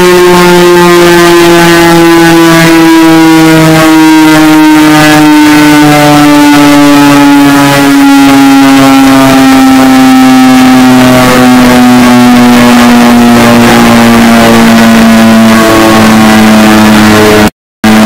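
Tornado warning siren winding down, its pitch falling slowly, overdriven to clipping so it sounds extremely loud and distorted. It cuts off near the end.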